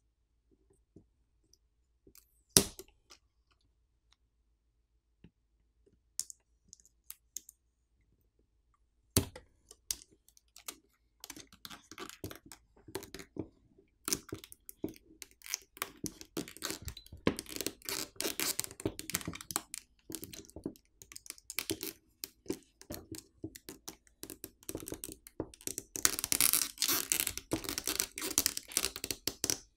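Small clicks and taps of hands and tools on a smartphone, then from about ten seconds in a dense run of scratchy clicking and crackling, loudest near the end: a battery pull tab being tugged back and forth against the adhesive under the battery.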